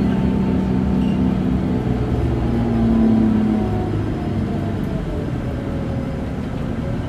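Scania K280UB bus's rear-mounted diesel engine and drivetrain running at speed, heard inside the passenger cabin. A whine slowly falls in pitch through the middle and rises again near the end.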